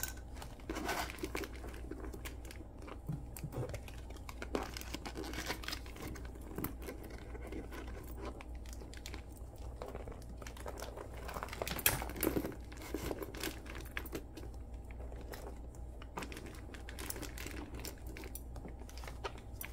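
Rustling and crinkling of things being packed by hand into a handbag with an organizer insert, with scattered small clicks and knocks of the items going in and a sharper click about twelve seconds in.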